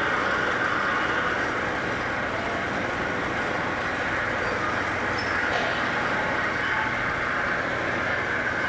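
Machinery running steadily: an even, unbroken noise with a constant low hum and a hissy band in the upper middle, with no separate strokes or impacts.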